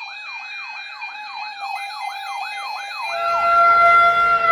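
Electronic siren yelping in quick rising-and-falling sweeps, about three a second. About three seconds in, a louder steady siren tone takes over.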